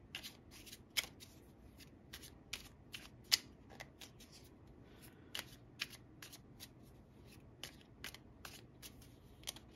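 A deck of tarot cards being shuffled by hand: an uneven run of short, soft card clicks, several a second.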